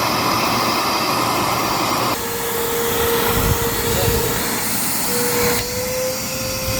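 Dirt Devil Powermax Pet upright vacuum cleaner running with a steady motor drone and whine. The sound changes abruptly about two seconds in and again past the halfway point.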